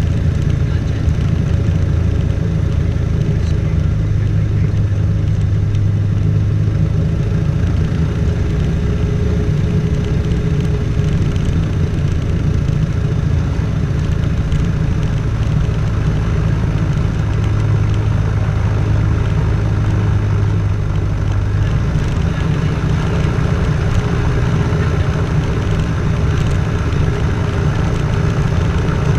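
Robin DR221 light aircraft's piston engine and propeller running steadily at low taxi power, heard from inside the cockpit. The low engine note shifts slightly a couple of times as the power changes.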